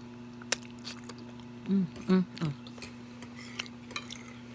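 A person eating chicken Alfredo: soft chewing and mouth sounds with a few small clicks, and three short vocal sounds a little before the middle.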